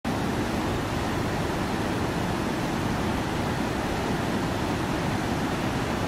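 River rapids rushing over rock ledges: a steady, unbroken wash of white water.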